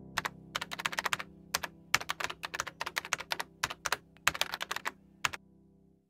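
Computer keyboard typing sound effect: a quick, irregular run of key clicks that stops a little after five seconds in, over the held last note of piano music, which then fades out.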